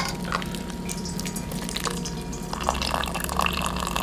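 Vegetable stock running and dripping from a wire-mesh skimmer full of boiled vegetables and kelp as it is lifted out of a steel stockpot, falling back into the pot in irregular patters and splashes. There is a light clink right at the start.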